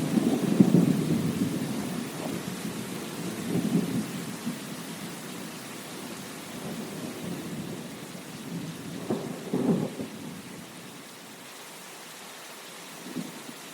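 Steady rain with rolling thunder: a rumble fading over the first couple of seconds, another swelling about nine to ten seconds in, then only the rain hiss and a faint rumble near the end.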